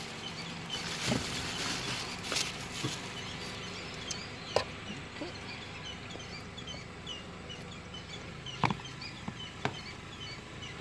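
Birds chirping steadily with many short, high calls, broken by a few sharp clicks or knocks, the loudest about halfway through and again near the end.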